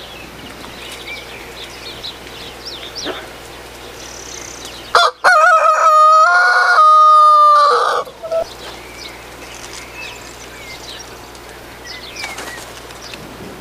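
Rooster crowing once: a loud cock-a-doodle-doo about three seconds long, starting about five seconds in. Fainter, short bird calls come before and after it.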